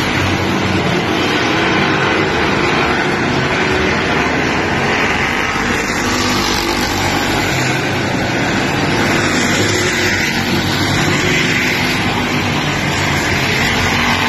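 Power Stock race car's engine running as the car laps the oval, a steady, unbroken drone mixed with noise.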